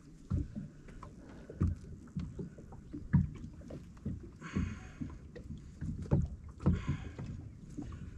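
Small waves slapping against the hull of a bass boat in irregular low knocks, with two brief splashy bursts, one about four and a half seconds in and one about seven seconds in.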